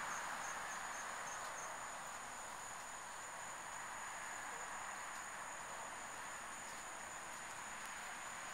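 Steady faint hiss with a thin high-pitched whine running through it, and no distinct sound events: background noise under the end card.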